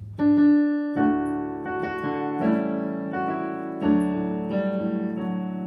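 Piano introduction to a hymn: a slow run of notes and chords, each struck and left to ring.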